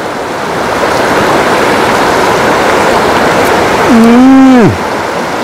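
Fast-flowing river rushing over rocks, a constant hiss of water. About four seconds in, a man gives one long closed-mouth "mmm" while chewing, a sound of relish, level at first and then dropping in pitch.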